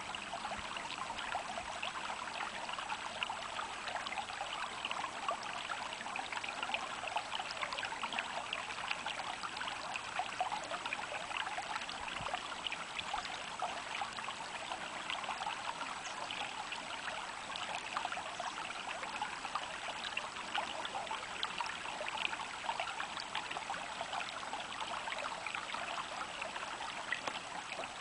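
Stream water trickling and babbling steadily, a continuous rush of many small splashes without pause.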